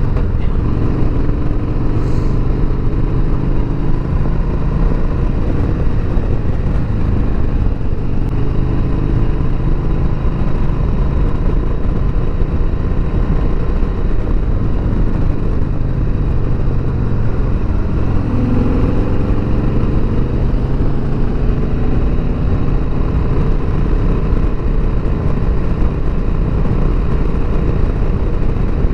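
2020 Harley-Davidson Sport Glide's Milwaukee-Eight V-twin engine running steadily while riding along a road, with wind noise over the microphone. The engine pitch shifts briefly a little past halfway through.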